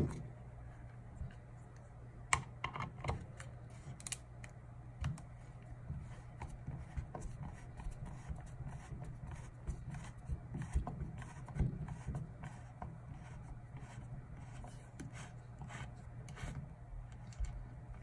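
Irregular small clicks and taps of a screwdriver working the screws of a clear plastic turn-signal lens, with the hard plastic housing knocking and scraping as it is handled. A steady low hum runs underneath.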